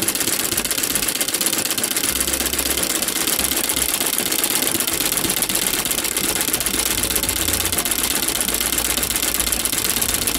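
Straight-stitch sewing machine running steadily for free-hand embroidery, its needle ticking in a rapid, even rhythm.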